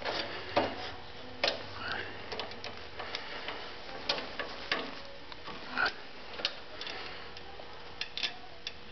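Irregular light metal clicks and clinks, a dozen or so, as a hex key, shaft collar and chain sprocket are handled and fitted on a Wheel Horse snowthrower's steel shaft.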